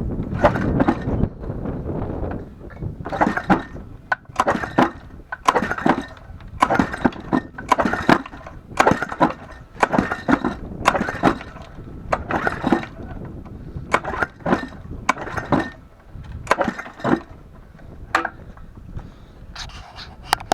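Lawnmower engine being pull-started: the recoil starter cord is yanked again and again, a rasping burst about once or twice a second, and the engine turns over without catching.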